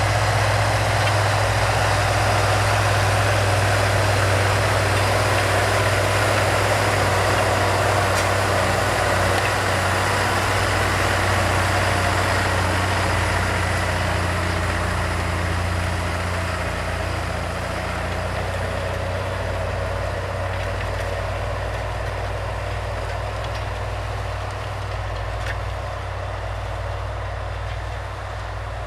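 Farm tractor's diesel engine running steadily, with a deep low hum, while pulling a plough. The sound slowly fades over the second half.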